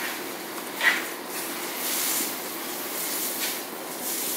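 Steady background hiss of room noise, with a short soft sound about a second in.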